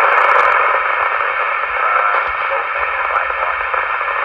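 Steady static hiss from a mobile VHF ham radio's speaker, the squelch open on a weak, noisy incoming transmission through a repeater, with little readable speech in it.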